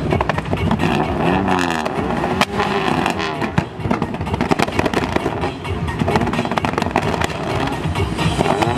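Car engines being revved, with repeated sharp bangs as exhaust flame-thrower kits fire, over background music.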